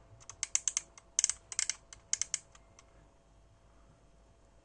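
A quick run of small sharp plastic clicks and taps, about fifteen in under three seconds, then it stops: buttons and parts of opened FPV goggles being handled.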